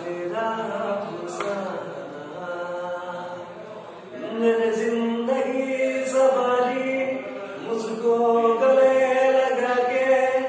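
A man singing a slow Hindi song solo and unaccompanied, holding long, drawn-out notes; the singing gets louder about four seconds in.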